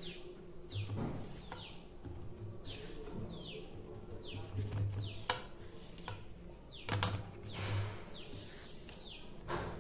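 A bird chirping over and over in short falling notes, over the rustle and scrape of a hand pressing a pomfret into coarse semolina coating on a steel plate, with a few sharp clicks.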